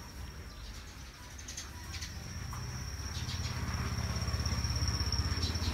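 Outdoor ambience: an insect's steady high-pitched call, with a low engine rumble that grows louder from about halfway through and is loudest near the end.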